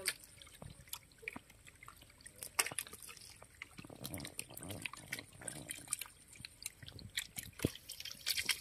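A dense mass of small fish thrashing in very shallow water, making many quick, irregular splashes and drips, with a few louder splashes now and then.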